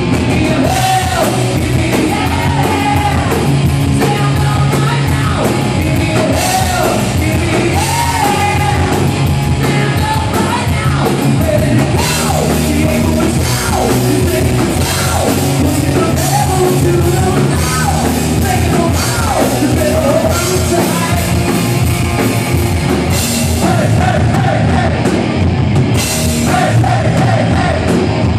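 A rock band playing live and loud: electric guitars, bass guitar and drum kit, with a singer's vocals rising and falling over them.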